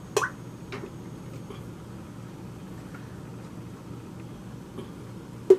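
Glass canning jars clinking as a jar lifter sets them down into an aluminum pressure canner: a sharp clink just after the start, a few faint knocks, and another sharp clink near the end, over a steady low hum.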